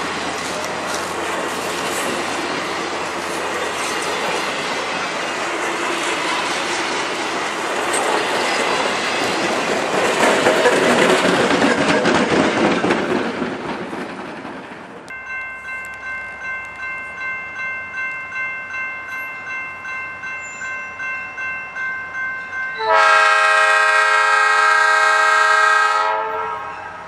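Passenger cars rolling past with clickety-clack wheel noise, fading out after about 14 seconds. Then a grade-crossing bell rings about twice a second. Near the end a diesel locomotive's air horn sounds one long blast of about three seconds.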